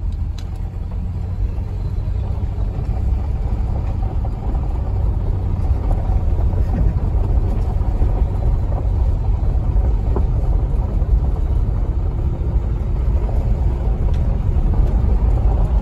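Car cabin noise while driving slowly on a gravel road: a steady low rumble of the car and its tyres rolling over gravel, growing a little louder over the first few seconds.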